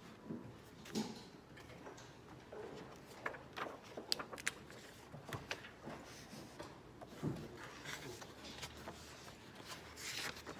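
Light taps, clicks and paper handling at a desk, then a page of a thick textbook being turned with a papery rustle near the end.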